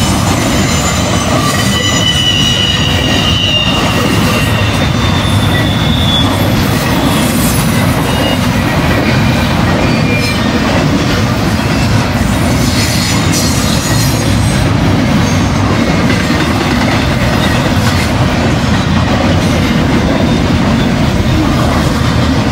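Double-stack intermodal freight train rolling past: a steady rumble of wheels and cars on the rails, with high-pitched wheel squeal strongest in the first few seconds and again briefly in the middle.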